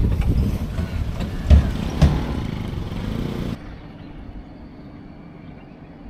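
Motor vehicle running with a low rumble and two heavy thumps, cut off abruptly about three and a half seconds in, leaving a quieter, duller background.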